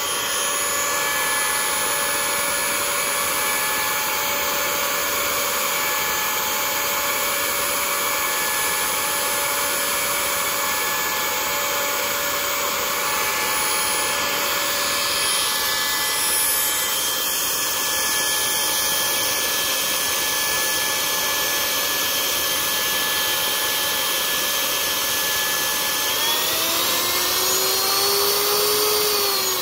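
Powerfun 50 mm 4300 kV electric ducted fan running steadily on a 4S LiPo: a whine of several steady tones over a rush of air. Near the end its pitch rises as the throttle is opened, then drops. It is a gentle run-up to break in a new battery.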